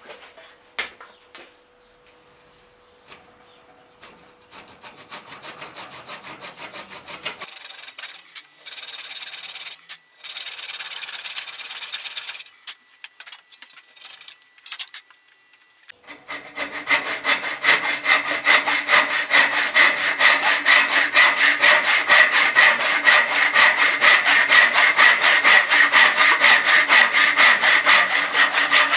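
A hand saw cutting through the end of an ash hammer handle clamped in a vise, stroke after stroke. It starts with a few light, uneven strokes, saws harder for a few seconds, pauses, then from about halfway on cuts in quick, steady, even strokes.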